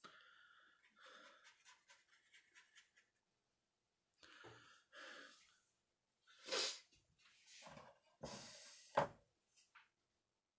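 Faint scattered handling noises, then the louder shuffle of a wooden painting board being turned on a table, ending in a sharp knock about nine seconds in.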